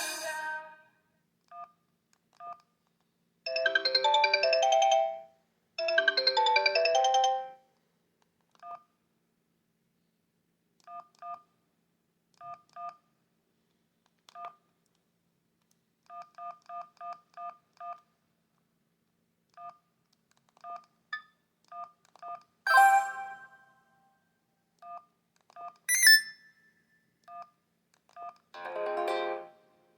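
Sony Ericsson D750i mobile phone speaker playing its preloaded ringtones and message tones in turn: a ringtone ending as it opens, two short melodic jingles a few seconds in, scattered short paired electronic beeps through the middle, and three brief alert chimes in the last third.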